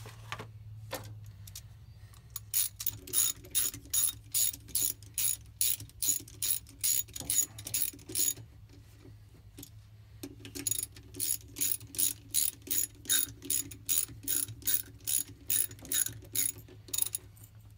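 A 3/8-inch socket ratchet clicking quickly and evenly as the lock-plate bolts on a fluid flywheel flange are run down. It goes in two runs, with a pause of about two seconds around eight seconds in.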